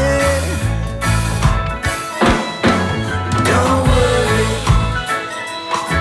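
Reggae band music: a sung lead vocal over a bass line, drum kit and guitar.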